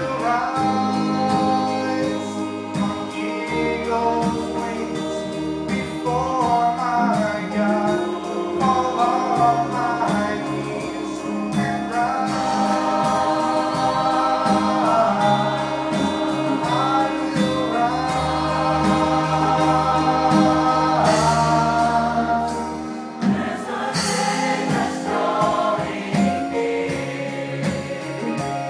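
Gospel choir singing with a male soloist over sustained low instrumental accompaniment; the low notes drop out briefly near the end.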